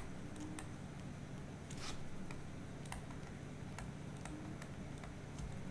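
Faint, scattered taps and a short scratch of a stylus on a tablet screen as words are handwritten, over a low steady hum.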